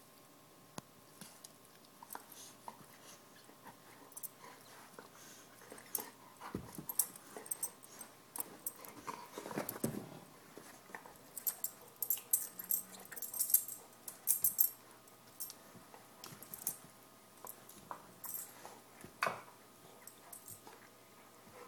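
Golden retriever playing with a black Goughnuts rubber ring toy: irregular clicks, scrapes and rustles as it mouths and chews the toy and pushes it around, busiest in the middle of the stretch.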